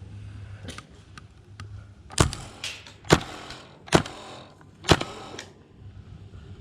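Airsoft rifle, an HPA-powered M4, firing four single shots about a second apart, each sharp crack followed by a fainter click about half a second later.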